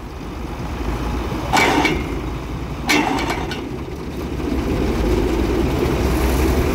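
Wheat threshing machine and its driving engine running steadily with a low rumble. Two short louder bursts come about a second and a half and three seconds in, and the machine noise grows louder and fuller from about the middle.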